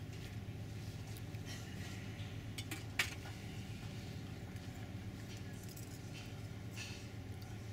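Steady low drone of a river cruise ship under way. About three seconds in, a single sharp clink, with a couple of fainter ticks just before it.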